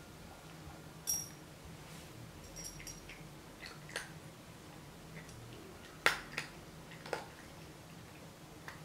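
Dry kibble clinking into a ceramic cat bowl about a second in, then a Bengal cat eating from it: scattered small clicks and clinks of kibble against the ceramic, the sharpest a little past the middle.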